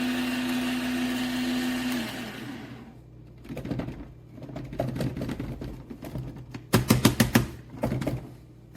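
Fellow Opus electric conical burr grinder's motor running with a steady hum, then winding down and stopping about two to three seconds in; the owner says the grinder runs on its own if left plugged in. Irregular rattling and clicking follow, with a burst of loud clicks about seven seconds in.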